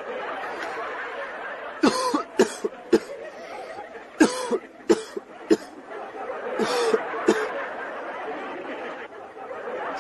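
A person coughing: short, sharp coughs in quick groups, bunched around two, four to five and seven seconds in, over a steady background murmur.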